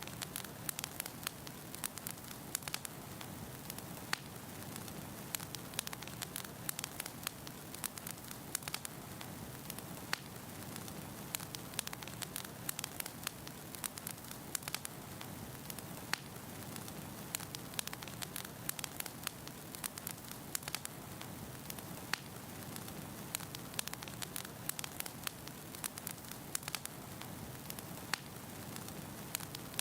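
Wood burning in a fireplace: a steady low rumble of flames with frequent sharp, irregular crackles and pops from the firewood.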